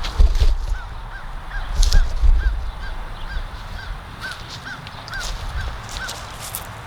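A bird calling over and over, about fourteen short rising-and-falling notes at roughly two and a half a second. Under it are low rumbling and a few thumps, loudest in the first couple of seconds.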